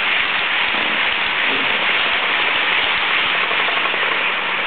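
Steady rushing noise of a non-stopping train passing through a station platform, with a faint low hum underneath.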